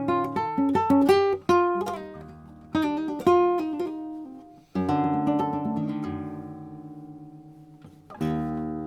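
Flamenco blanca guitar with a spruce top and cypress back and sides, played solo: a quick phrase of plucked single notes, then a strummed chord left to ring and die away for about three seconds, then another chord struck near the end.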